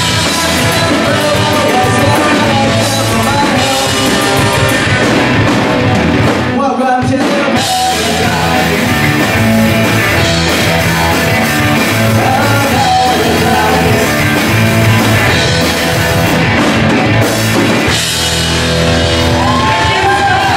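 A live punk rock band playing: distorted electric guitar, bass guitar and drum kit, with a singer's vocals over the top.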